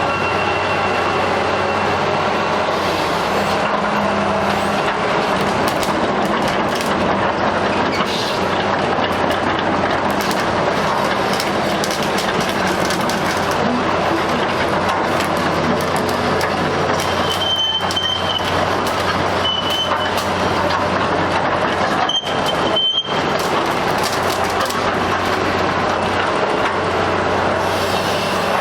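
Sumitomo S280FA hydraulic excavator running: a steady diesel engine drone mixed with machine noise, with a few brief high-pitched squeals in the second half.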